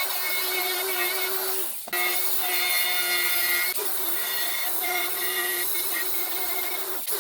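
Electric router running at speed while cutting a recess into hard wood: a steady high motor whine over the hiss of the bit in the wood. It breaks off briefly about two seconds in and again near the end.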